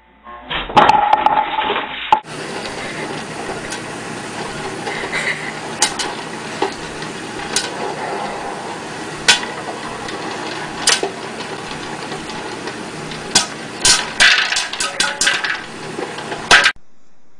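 Sharp knocks and clattering over a steady background hiss, several single strikes and then a quick cluster of them near the end, stopping abruptly.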